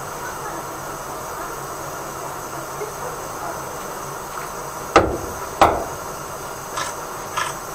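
Steady hiss of water backing up out of a blocked drain, with two sharp knocks about five seconds in, half a second apart, and two fainter clicks near the end.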